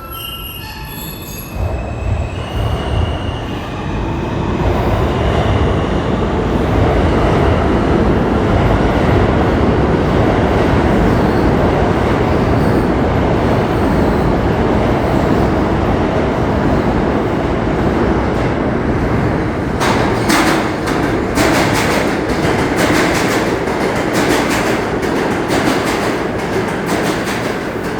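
R160 subway train running along the track, its wheels and motors making a loud rumble that builds over the first few seconds. In the last third, rapid clicking of the wheels over rail joints joins the rumble.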